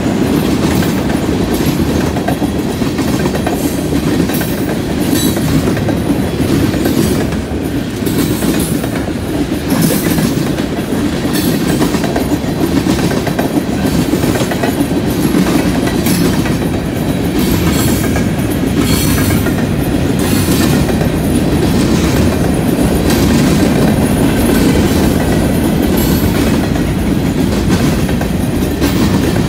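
Freight cars of a passing train (tank cars and covered hoppers) rolling by at close range: a steady rumble with repeated clicking of steel wheels on the track.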